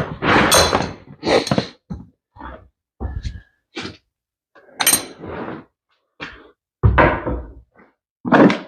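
Irregular clanks and thunks of hand tools and metal parts being handled while a motorcycle is taken apart: about a dozen separate knocks, a few with a bright metallic ring and a couple of duller, heavier thuds.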